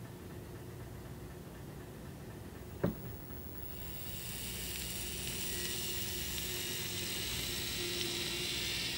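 Athearn N scale Challenger 4-6-6-4 model steam locomotive running on the track with a faint low hum. There is one sharp click about three seconds in, then a steady hiss comes up from about four seconds in.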